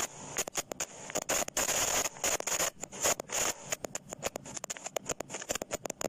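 Microphone distortion sound effect: harsh scratchy crackle made of rapid, irregular clicks and short noisy bursts with brief dropouts between them, imitating a faulty microphone cutting in and out.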